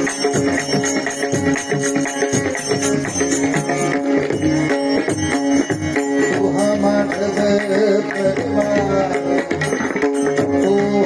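Instrumental passage of Marathi bhajan music: a sustained melody over a fast, steady drum rhythm with jingling cymbals. About six seconds in, a wavering melodic line comes up over it.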